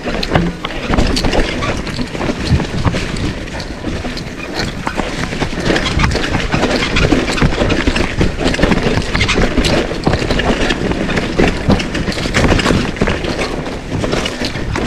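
Mountain bike riding over a rough dirt trail: a dense rumble of tyres on dirt with frequent, irregular knocks and rattles from the bike.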